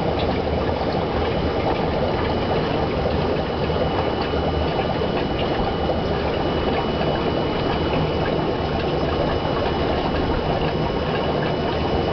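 Steady bubbling and rushing water from aquarium air lines and filtration, with a faint steady high tone over it.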